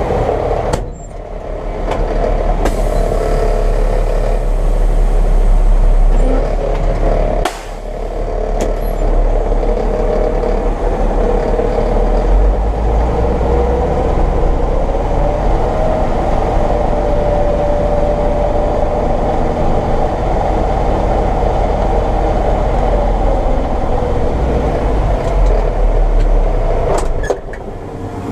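John Deere 9500 combine running steadily while harvesting corn, a loud engine and machinery drone with a deep rumble, heard from the operator's position. The level dips briefly a few times.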